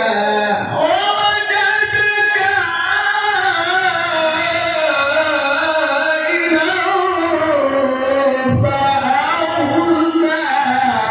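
A male qari's voice holding one long, ornamented phrase of melodic Quran recitation (tilawah), the pitch winding up and down without a break.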